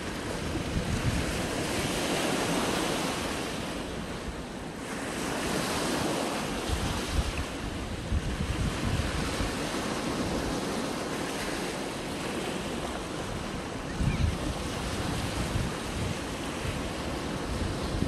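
Small sea waves washing up a sandy beach and around rocks, the surf hissing and rising and falling in swells every few seconds, with wind buffeting the microphone.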